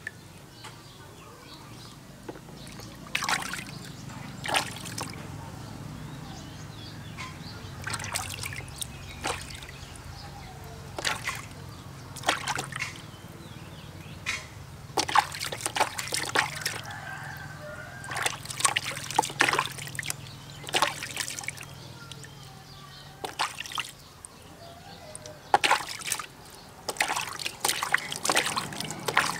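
Water splashing and trickling in a plastic basin as hands scoop and pour it over a baby monkey during a bath: irregular splashes and drips, some in quick runs.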